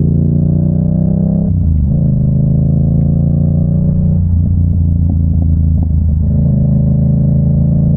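Yamaha R7's parallel-twin engine under way: the pitch climbs, drops sharply at a gearshift about a second and a half in, then holds steady. The note dips and wavers again around the middle before settling into a steady cruise.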